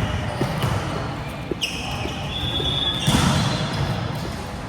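Volleyball game sounds in a large gym hall: scattered thuds of the ball being struck and bouncing, a high held squeal from about one and a half to three seconds in, then a loud sharp hit about three seconds in.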